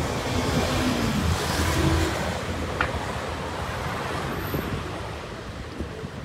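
Road traffic noise from passing cars, louder for the first two seconds and then slowly fading.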